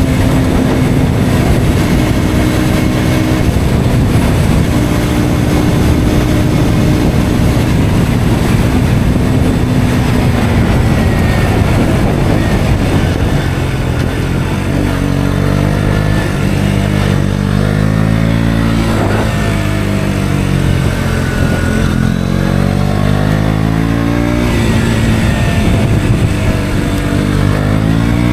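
KTM Duke 125's single-cylinder four-stroke engine running through an aftermarket Akrapovic exhaust while riding. The engine note holds steady at first. From about halfway the revs rise and fall several times.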